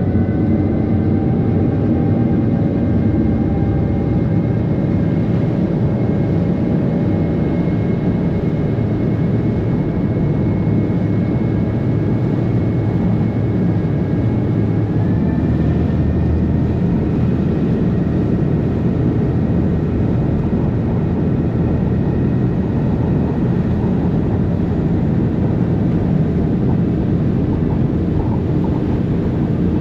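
Passenger ferry's engines running steadily underway, a loud low drone with a faint whine in it that steps up in pitch about halfway through.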